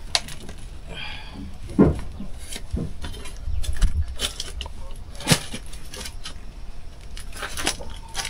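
A gift parcel being pulled open by hand without a knife: scattered rustles, rips and knocks of the packaging, with a few louder thuds.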